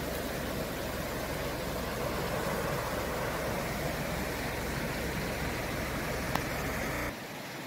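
Steady rush of a fast-flowing river running over rocks, with a low rumble underneath; the sound drops off abruptly near the end.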